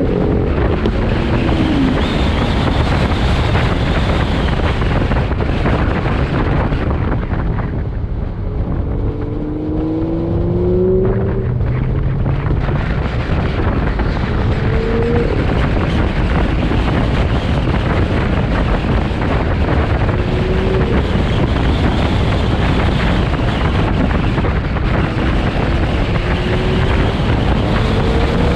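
Chevrolet C8 Corvette's mid-mounted V8 running hard, its pitch rising under acceleration several times, over heavy wind and road noise on the microphone.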